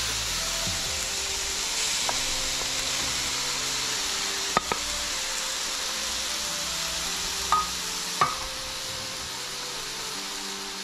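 Food sizzling as it fries in a hot wok: a steady hiss. A few sharp clicks sound against the pan, one about four and a half seconds in and two more around the eight-second mark, as shrimp are added to the chicken.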